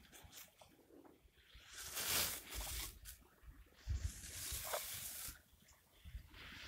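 Skis hissing through snow as a skier turns down an off-piste slope, in a few faint swishes about two and four seconds in, with near silence between them.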